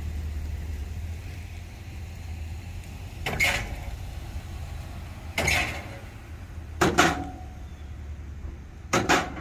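Heavy pickup truck with a 7.3-litre gas V8 rolling slowly across a truck weigh scale: a steady low engine rumble with four sharp clunks, roughly two seconds apart, as its wheels cross the scale deck.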